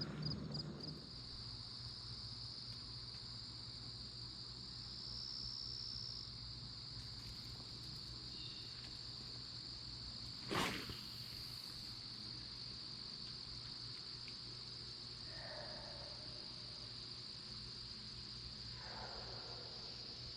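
Crickets singing a steady, high-pitched trill. About ten and a half seconds in there is one brief sharp sound, the loudest moment.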